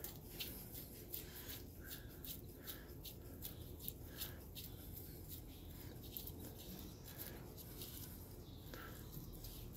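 Faint, irregular metallic ticks and rubbing as an old castle nut is spun by gloved hand onto the threads of the front spindle, against the greased outer wheel bearing.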